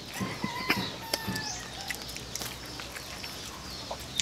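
Small clicks and lip-smacks of people eating by hand, with birds chirping in the background; a whistle-like call starts about half a second in and lasts about a second.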